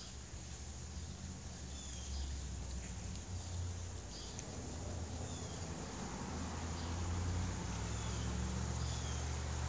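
A low, steady engine-like hum, a little louder in the second half, with several short, high bird chirps over it and a faint steady high hiss.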